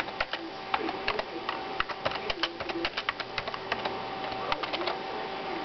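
Cat licking and chewing a cherry held in a person's fingers: irregular wet mouth clicks and smacks, several a second. It is heard through a phone's speaker, over a steady electrical hum.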